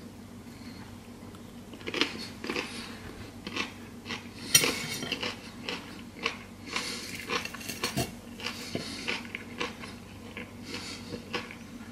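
Metal fork clinking and scraping against a plate, with chewing of fried chicken in between; the sharpest clink comes about four and a half seconds in.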